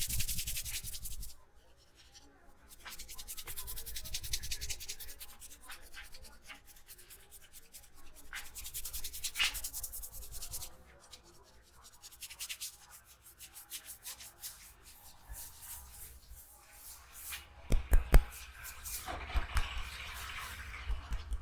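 Hands rubbing vigorously through hair and over the scalp during a head massage, a scratchy swishing in repeated passes of a second or two each. Near the end come several sharp taps.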